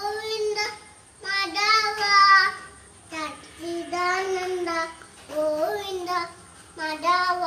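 A toddler chanting evening prayers (naamam) in a high sing-song voice, in short phrases with brief pauses between them.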